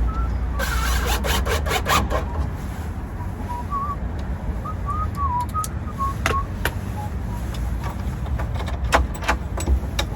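Sharp clicks and knocks from work on a door with a newly fitted sash lock: a quick cluster about half a second in, then single clicks every few seconds. A low steady rumble and a faint wavering whistle-like tone run underneath.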